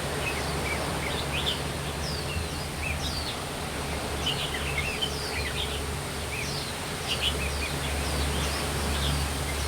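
Small birds chirping repeatedly, short high notes that slide downward, over a steady rushing background noise.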